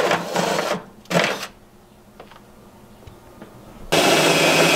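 Cordless drill boring into the bus's sheet-metal wall, a loud whir in runs. One run fills the first moment, a short one comes about a second in, and a longer run starts about four seconds in.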